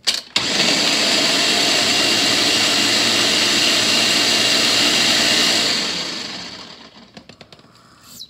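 Countertop blender running, blending chicken stock with cream cheese: it starts about half a second in, runs steadily for about five seconds, then winds down and stops.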